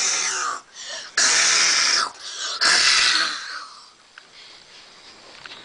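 Children making raspy, hissing sound effects with their mouths: three loud breathy bursts a little over a second apart, then quieter.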